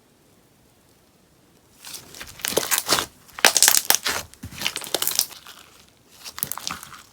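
Beeswax sponge slime being worked, crackling and popping. The sound comes in several loud bursts starting about two seconds in.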